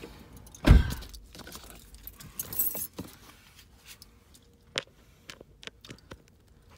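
Objects being handled: a loud thump about a second in, a brief rustle, then scattered light clicks and clinks.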